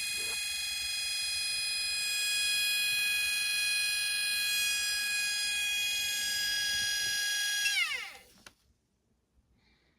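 Washing machine universal motor running at speed with a steady high-pitched whine; about eight seconds in it is switched off and the whine falls in pitch as the motor spins down to a stop.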